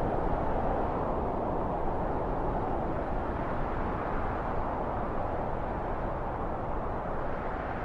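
Steady low rushing noise that slowly grows quieter.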